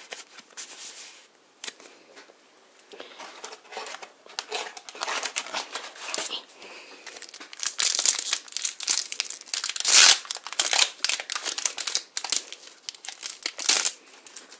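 Foil booster pack wrapper crinkling and being torn open: an irregular run of crackly rustles, loudest about ten seconds in.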